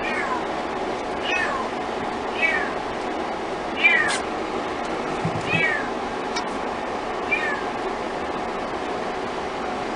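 Kitten mewing repeatedly: about six short, high-pitched mews, each falling in pitch, spaced a second or so apart.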